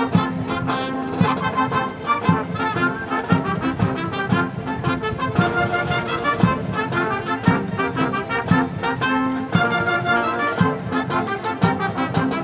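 Brass band playing a piece of music, trombones and trumpets over a low drum beat about once a second.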